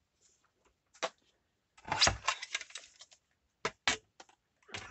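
Paper being cut and handled with scissors: a single click about a second in, a short crackly rustle around two seconds, then two sharp clicks near four seconds.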